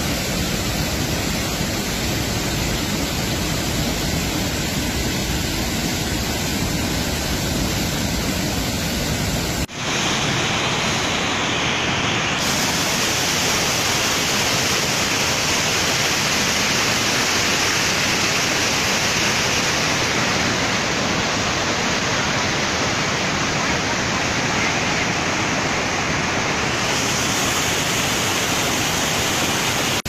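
Muddy floodwater rushing in a steady roar from a stream and waterfall swollen by heavy rain. About ten seconds in it cuts to a waterfall in flood, whose rush is brighter and more hissing.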